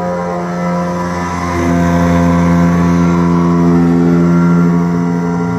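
CNC wood router machine running with a steady, multi-toned motor whine that shifts in pitch and gets louder about a second and a half in.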